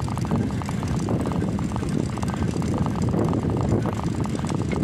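Wind rushing over the microphone of a moving bicycle, with a fast, steady rattle from the bike rolling over paving stones.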